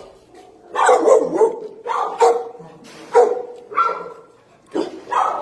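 Shelter dogs barking in their kennels: a string of about five barks or bark clusters, a second or less apart.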